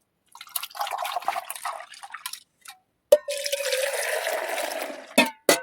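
Milking sound: two squirts of liquid hissing into a container, each about two seconds long, the second with a steady ringing pitch as the stream hits the vessel. Two short knocks follow near the end.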